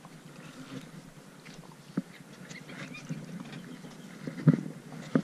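A few scattered hollow knocks and thumps on a slotted plastic floating dock, the loudest about four and a half seconds in, with a lighter one near two seconds and another at the end.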